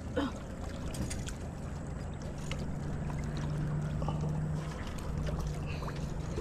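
A boat motor humming low and steady over a rumbling background. The hum starts about a second and a half in and drops out briefly near five seconds before resuming, with a few faint clicks along the way.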